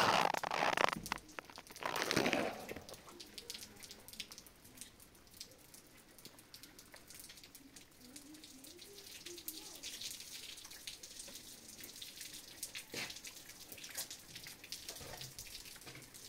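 Scattered water drops falling and tapping, after two short rushing bursts in the first two seconds.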